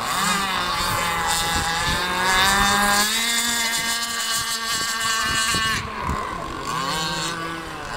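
Radio-controlled speedboat's motor running flat out: a steady high whine that jumps slightly in pitch about three seconds in, drops briefly near six seconds, then climbs again.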